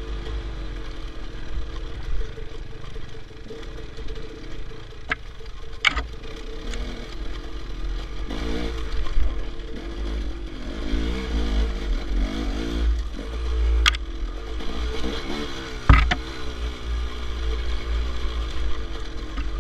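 Enduro dirt bike engine running and revving up and down under a rider on a rough trail, with a low rumble of wind on the microphone. A few sharp knocks, the loudest about sixteen seconds in.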